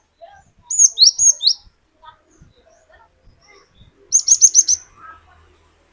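Cinereous tit (gelatik batu) calling: a few sharp, high, sweeping chirps about a second in, then a quick run of five high notes just after four seconds.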